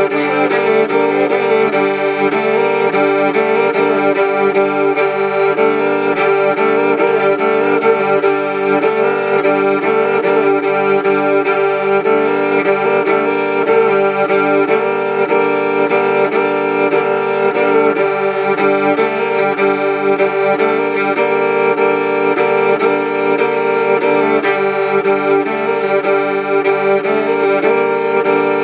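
Walnut tagelharpa bastarda, a bowed lyre pitched lower than a standard tagelharpa and higher than a tagelharpa cello, being bowed: a continuous droning chord, with the bow strokes changing every second or two.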